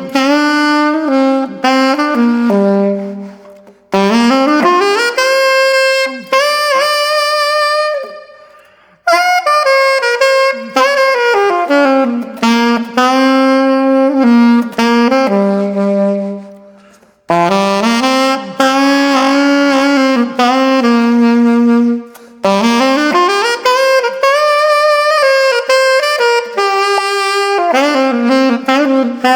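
Background music: a lone saxophone playing a slow jazzy melody in phrases, sliding up into held notes, with short pauses between phrases.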